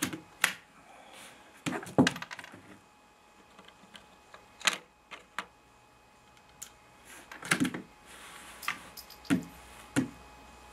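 Sharp metallic clicks and clacks from handling a BSA Century .22lr bolt-action target rifle's action, coming in irregular groups with a quick run of clicks about two seconds in and again near the middle.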